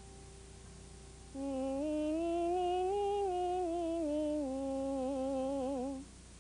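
A single voice humming a short tune, rising in small steps and then falling back, with a wavering finish, for about four and a half seconds, starting about a second in.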